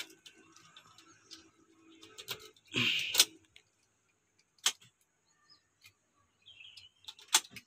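A few sharp clicks and a brief rustle over quiet room tone: the ignition key being handled and turned in the ignition switch of a Mitsubishi Strada Triton.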